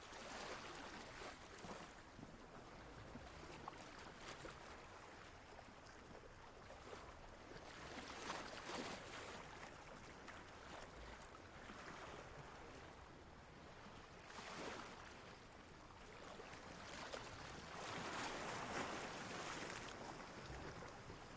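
Ocean waves washing in, a steady rush of water that swells into a stronger surge every few seconds, the biggest one near the end.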